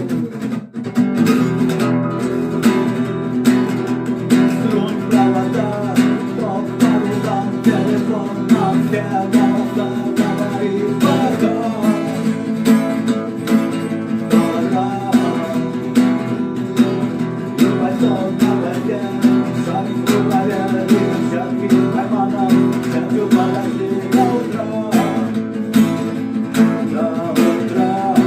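Acoustic guitar strummed in a steady, driving rhythm, playing a rock song.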